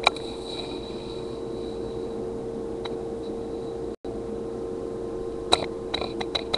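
Sharp clicks of a computer mouse and keyboard being used: one click at the start and a quick run of about six clicks in the last second. Under them runs a steady electrical hum with a thin whine, and the sound drops out briefly about four seconds in.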